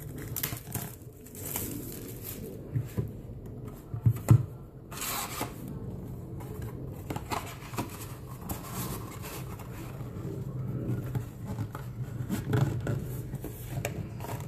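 Plastic shrink wrap crinkling and rustling as it is peeled off a cardboard trading-card display box, then the cardboard box being handled and opened, with scattered light taps and two sharp knocks about four seconds in.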